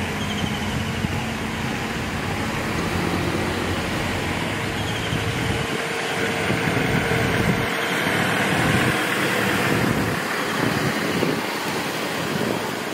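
Vehicles in a slow convoy driving past, a Land Rover Defender and saloon cars, with engine hum and tyre noise on the road. The engine hum is steadiest in the first half, then gives way to a more even road noise.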